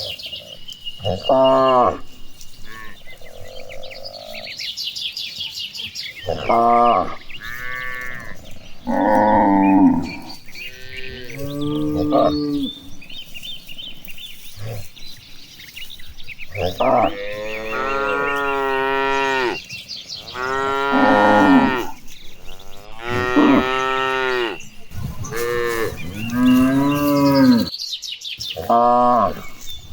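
A herd of cattle mooing, many separate calls from different animals one after another and sometimes overlapping, some short and some drawn out over a second or two.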